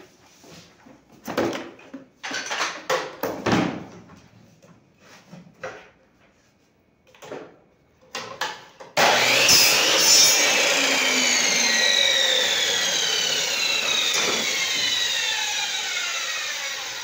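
Knocks and clatter of wood pieces being handled. About nine seconds in, a power miter saw starts suddenly and loudly, then its blade winds down with a slowly falling whine that fades.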